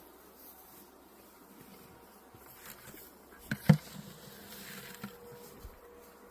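Insects buzzing faintly and steadily, with two sharp knocks in quick succession about three and a half seconds in.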